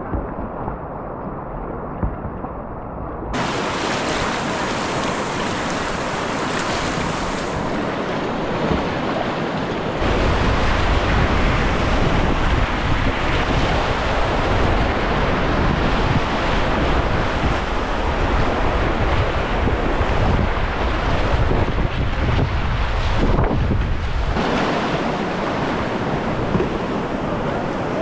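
Rushing whitewater of a river rapid at high flow, about 6,000 cfs, heard close to the water from a kayak, with wind buffeting the microphone. The sound changes abruptly a few times, with a heavier low rumble from about ten seconds in until a few seconds before the end.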